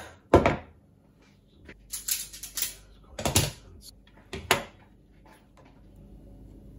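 Metal hand tools (a utility knife, pliers and wire strippers) set down one after another on a wooden worktop: a string of sharp clacks and clatters, loudest just under half a second in and again around three and a half seconds, then quiet from about five seconds.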